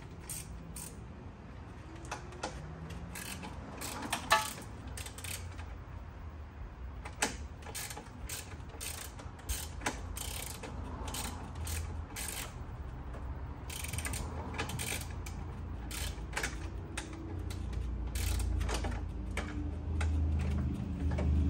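Ratchet wrench clicking in short, irregular runs as the 10 mm nuts holding a car horn to its bracket are worked off. A low engine rumble builds near the end.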